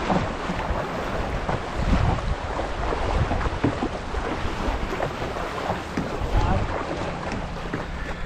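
Wind buffeting the microphone in uneven low gusts over the steady rush of moving river water around the canoe.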